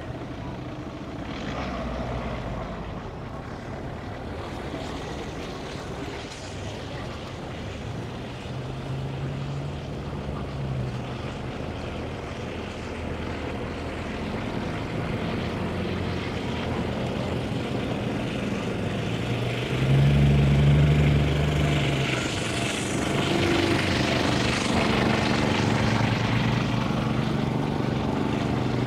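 Engines of several Volkswagen Caddy vans running as they crawl in a convoy over grass. A louder engine surge comes about two-thirds of the way through, and the sound grows louder toward the end.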